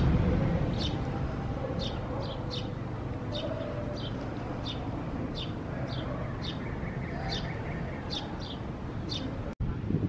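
A bird chirping over and over in short, high chirps, about two a second, over a steady low background hum; the sound cuts off suddenly near the end.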